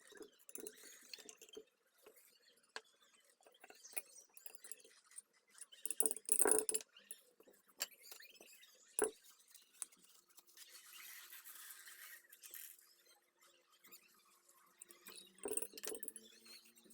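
Hand work on a Zippo lighter: scattered small clicks, taps and scrapes, with a louder clatter about six seconds in and a sharp click about nine seconds in. A soft hiss follows for a few seconds, and a faint steady hum comes in about ten seconds in.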